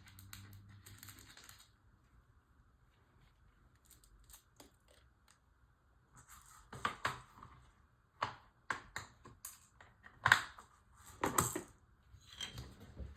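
Clicks and light knocks of plastic model-kit parts being handled and fitted together, with a cluster of sharp clicks in the second half.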